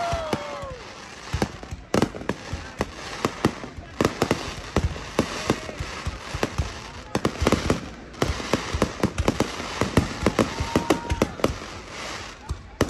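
Fireworks display going off: a rapid, irregular string of bangs and crackling pops, with many reports a second.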